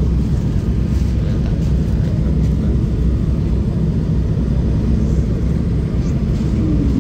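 Steady low rumble of a jet airliner's cabin in flight, heard from a window seat: engine and airflow noise running evenly.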